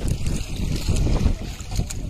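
Wind buffeting the microphone with water washing along the hull of an outrigger boat, an uneven rumbling that eases a little near the end.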